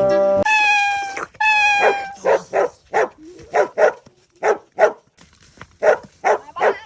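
Dog giving two drawn-out whines that fall slightly in pitch, then a quick run of short, high-pitched yips with a brief pause partway through.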